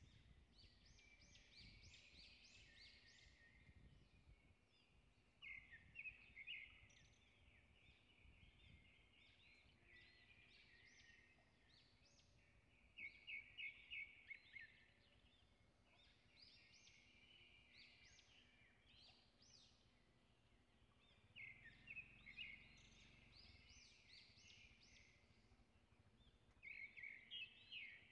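Faint birdsong: short bursts of quick, high chirping notes that come again every several seconds, over a quiet background hiss.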